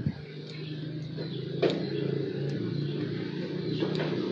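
A motor vehicle's engine running steadily, a low even hum, with a few sharp clicks over it, twice clearly: once at about a second and a half and again near the end.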